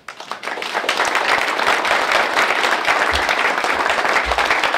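Audience applauding: the clapping starts at once, swells within the first second and then holds steady. Two dull low thumps come near the end.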